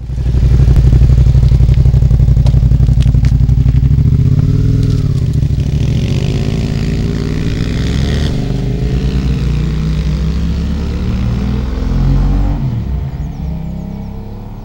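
Suzuki SV650 V-twin and Honda CBR125 single-cylinder motorcycles riding off through a hairpin. A loud, deep engine sound close by at first, then revs rising and falling with gear changes, fading toward the end as the bikes ride away.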